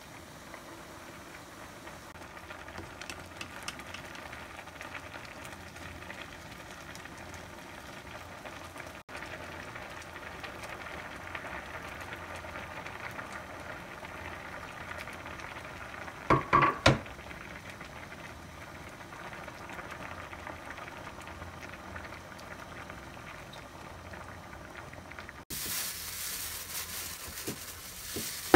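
Pot of doenjang stew bubbling steadily at a boil, with a quick run of loud knocks about sixteen seconds in. Near the end, a plastic bag rustling.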